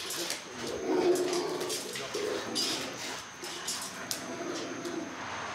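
Kennelled dogs whining in a low, wavering moan, with a few light clicks and rattles from the wire kennel panels.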